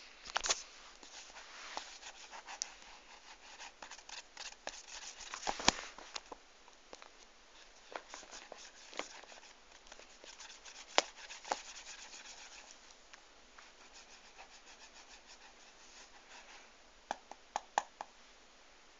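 Sheets of paper rustling and crinkling under a cat's paws as it steps and shifts on them, with scattered sharp crackles and clicks. A quick run of clicks comes near the end.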